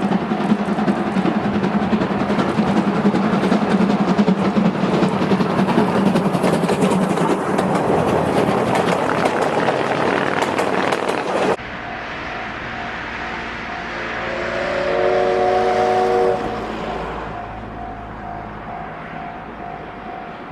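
The Moka Railway's steam-hauled New Year special train passes close by with loud, dense running noise and rapid clattering. After an abrupt cut, the train is heard farther off, and its whistle sounds for about two seconds a little past the middle.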